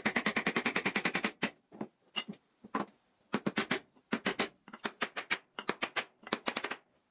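Fast light taps of a steel-headed hammer on the end of a wooden joint member, struck both directly and through a small wooden block. The taps come about ten a second for the first second and a half, then in short runs with brief pauses between them.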